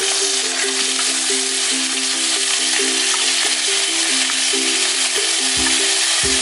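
Chopped vegetables sizzling steadily in hot oil in a steel pan as they are added to frying onion and garlic-ginger paste. A simple background music melody plays alongside.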